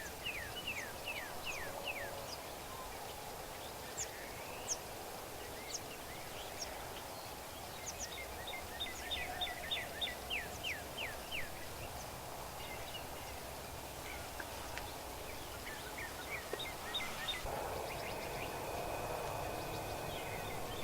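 Wild songbirds singing outdoors: repeated series of quick down-slurred whistled notes, about four or five a second, in three bouts, with scattered short high chirps between them over a steady outdoor background.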